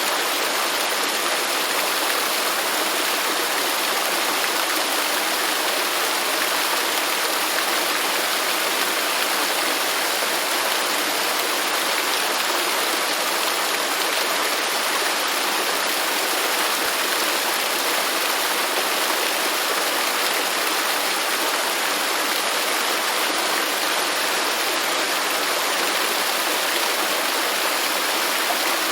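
Waterfall: water falling and rushing in a steady, even roar with no change.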